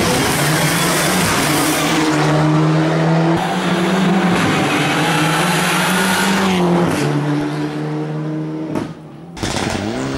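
Rally car engine running hard at high revs as the car races past on tarmac, with tyre noise. The engine note steps down about seven seconds in, then after a brief dip an engine revs up and down near the end.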